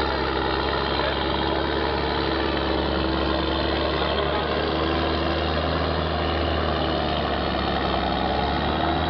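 Case IH CVX 140 tractor's diesel engine idling steadily through its open straight exhaust pipe.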